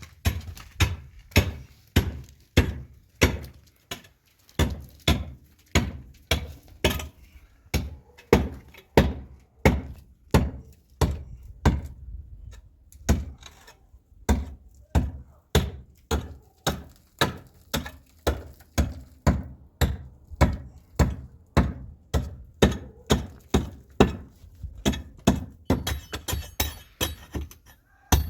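Repeated heavy hammer blows during renovation work, a steady run of thudding strikes about two a second that speeds up a little in the second half.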